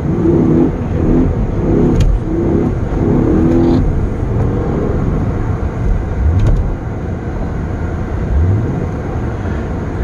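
Honda Odyssey minivan's engine revving up several times, heard from inside the cabin, as the van is driven to get it moving out of deep snow with traction control switched off.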